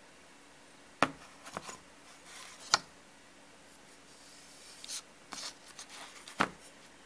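Hands handling bare steel knife blades on paper laid over cardboard: several sharp clicks and knocks as the blades are moved and set down, the loudest about a second in, a little under three seconds in, and near the end, with paper rubbing and scraping between them.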